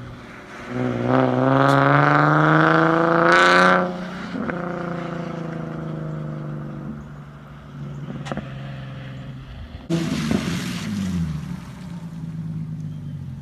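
Nissan 370Z's 3.7-litre V6 idling through a freshly fitted Tomei Expreme cat-back exhaust, revved once for about three seconds with the pitch climbing, then dropping back to idle. About ten seconds in, a second shorter rev comes in suddenly and falls away.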